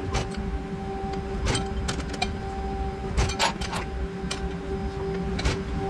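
Press brake running with a steady hum while 12-gauge steel pieces are bent in a 3D-printed PLA V punch and die. Sharp metallic clinks and knocks come about eight times as the steel parts are handled and formed, the loudest a cluster a little past the middle.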